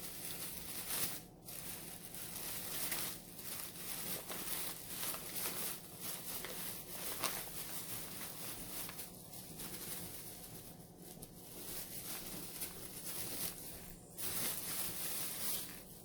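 Plastic packaging crinkling and rustling irregularly as a bag of bread buns is handled and opened.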